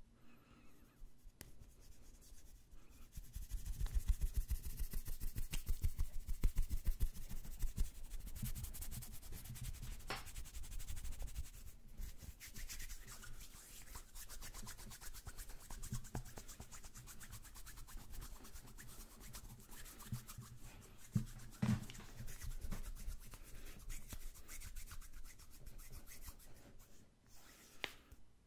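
Hands rubbing together close to a microphone: dry skin-on-skin friction in quick repeated strokes, fastest and loudest from about three to eight seconds in. A few short sharp clicks stand out over the rubbing.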